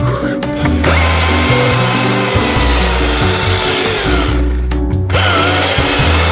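Battery-powered chainsaw cutting into a birch trunk. The cutting runs for about three seconds, stops briefly, then starts again, with background music underneath.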